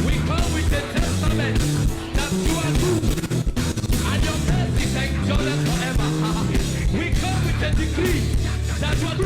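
Live church worship music: a band playing a steady beat with voices singing.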